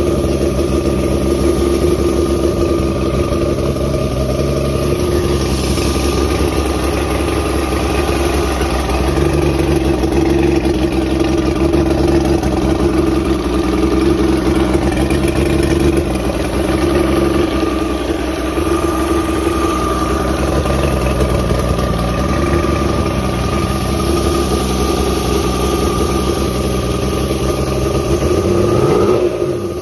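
Mercury inline-six two-stroke outboard idling steadily, its ignition timing retarded to 9° after top dead centre. Near the end the engine speed starts to rise.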